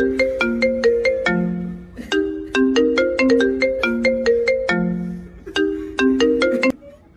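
Samsung phone ringtone playing a bright, marimba-like melody in repeating phrases, cutting off suddenly near the end.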